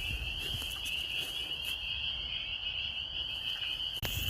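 A dense chorus of spring peepers, many high peeps overlapping into one continuous shrill band, with a low rumble underneath.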